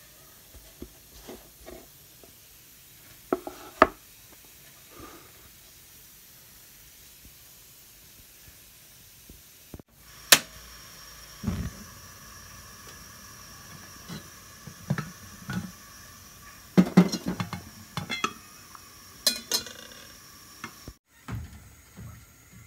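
Handling knocks and sharp clicks of hands on a wooden board, then a lit gas stove burner with a steady hiss under clicks and knocks from its knob and a match, and a low thud near the end as a steel pot is set on the burner.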